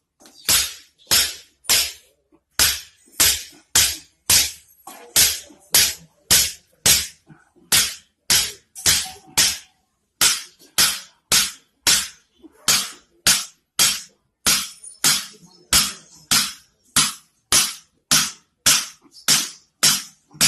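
A steady run of sharp strikes or cracks, about one and a half to two a second, each ringing briefly before the next.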